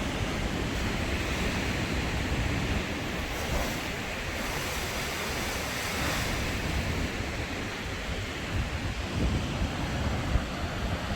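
Storm-driven ocean surf breaking in a steady wash, with wind buffeting the microphone.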